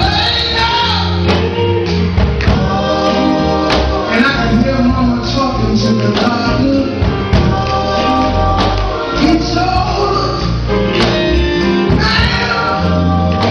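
Gospel song with a male lead voice and backing choir singing over a band with a steady bass line and regular percussion hits.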